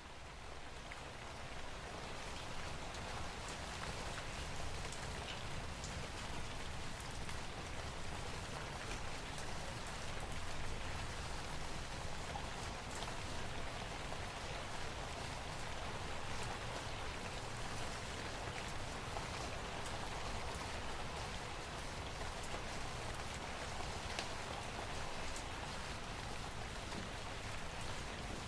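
Steady rain falling: a dense hiss with scattered drop ticks. It fades in over the first couple of seconds and then holds even.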